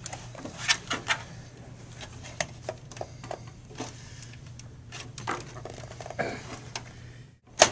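Scattered clicks, knocks and light scrapes of a Dell desktop's power supply unit being released and slid along its rails in the sheet-metal case, with a sharp click near the end.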